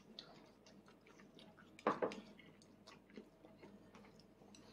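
Faint chewing and small mouth clicks of a toddler eating, with one short louder sound about two seconds in.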